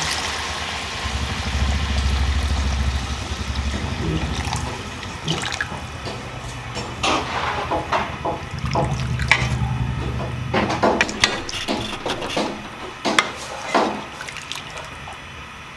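Water poured from a jug into a kadhai of simmering fish curry, then a metal ladle stirring the broth and clinking and scraping against the aluminium pan many times.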